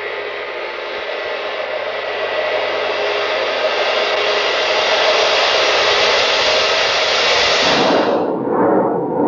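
A rushing hiss of noise effect that swells gradually louder, then breaks off sharply about eight seconds in and gives way to lower, wavering electronic tones.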